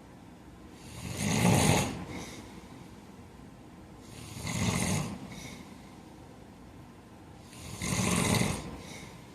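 A heavy man snoring in his sleep: three loud snores about three and a half seconds apart, each lasting about a second, with softer breath sounds between them.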